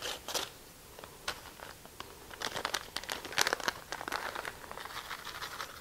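A paper packet of dry onion soup mix crinkling and crackling as it is torn open and handled, in irregular bursts of sharp crackles that come thickest about halfway through.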